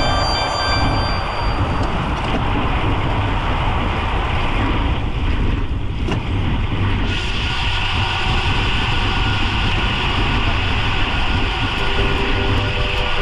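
Steady rushing wind and road noise from a camera mounted on a road bike riding at speed. Faint music with held notes comes in during the second half.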